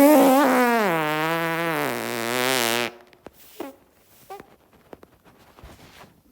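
A long fart of about three seconds, with a wavering pitch that drops steadily before it cuts off sharply. A few faint clicks and rustles follow.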